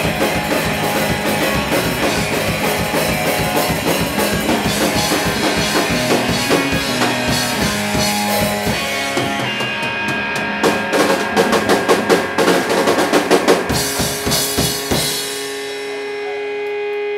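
Live rock band playing: electric guitars over a drum kit, with a run of hard drum hits about ten seconds in. Near the end the drums stop and a single guitar chord is held and left ringing as the song closes.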